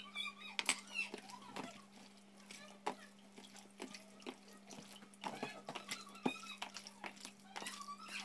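Wet squishing and scattered sharp clicks of a hand mixing raw turkey pieces with seasoning in a plastic container, over a steady low hum.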